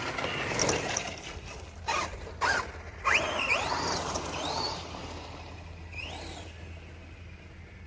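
Battery-electric 1/6-scale Losi Super Lasernut RC buggy running on a 6S pack, its motor whining up and down in pitch as it accelerates and slows, with two sharp noises about two seconds in. The sound fades in the second half.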